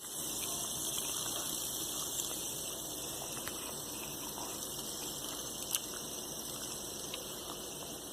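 Spinner toy spinning fast: a steady high whir from its bearing that eases off slightly, with a few faint clicks.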